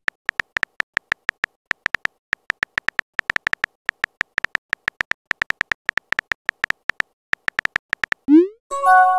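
Synthetic keyboard click sounds from a texting-story app, one short tick for each letter typed, in quick irregular runs of several a second. Near the end comes a short rising swoosh as the message is sent, then a brief electronic chime of a few stacked tones.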